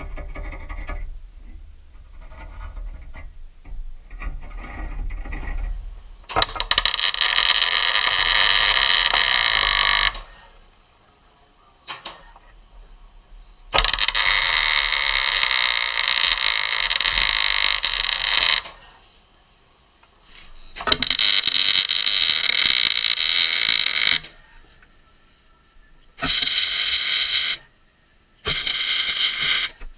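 A power tool cutting the steel VW bumper hanger in five hard bursts that start and stop abruptly. The first three run several seconds each and the last two are short, trimming the hanger so it clears the valance lip.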